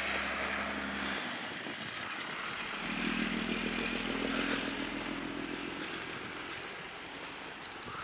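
Traffic on a snow-covered city street: one vehicle's engine hum stops about a second in and another engine comes through from about three seconds in, over a steady hiss.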